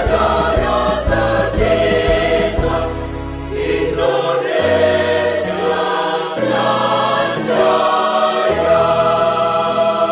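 Choir singing over instrumental backing. A steady beat with a bass line runs for about the first four seconds, then drops away, leaving held chords under the voices.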